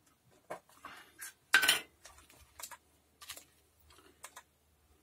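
Small metallic clicks and clinks of hand tools and a circuit board being handled on a workbench during SMD soldering work, about eight short knocks with one louder clatter about a second and a half in.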